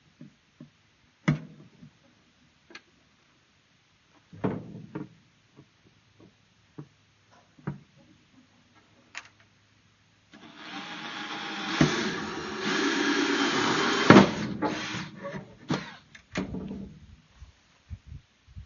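Drill with a hole saw cutting through the wall of a plastic paint bucket. A few short knocks and brief bursts come first, then about ten seconds in the saw bites in for roughly six seconds of continuous, rough cutting, with a sharp crack in the middle, until the hole is through.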